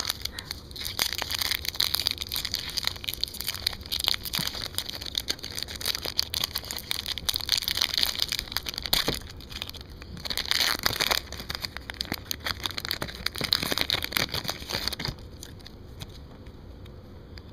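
Foil wrappers of Upper Deck hockey card packs being torn open and crumpled, a dense crinkling with many small crackles; it stops suddenly near the end.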